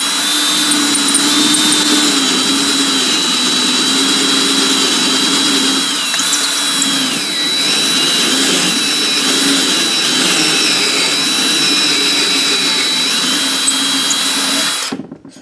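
Drill running at low speed, turning a reamer inside the valve guide of a Briggs & Stratton flathead engine's block to open the guide up for a bushing. The motor's whine sags in pitch under load around the middle and stops near the end.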